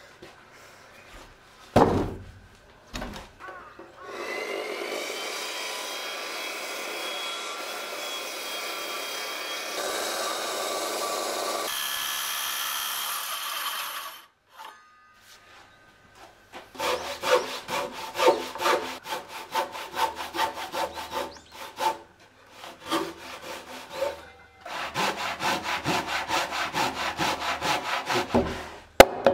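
A knock on a Japanese pine beam, then a circular saw spins up and cuts into it steadily for about ten seconds before stopping. After a pause, a hand saw works through the wood in quick, even strokes, with a couple of short breaks.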